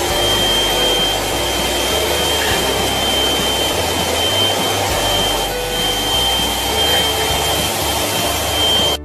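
Vacuum cleaner running steadily with a thin high whistle, its nozzle being run over a cat's fur; it cuts off abruptly near the end.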